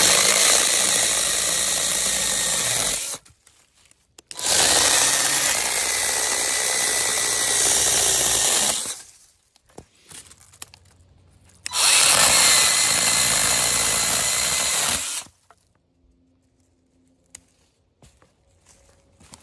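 Cordless electric mini chainsaw running in three bursts of a few seconds each, the second one longest, with a steady motor-and-chain whine.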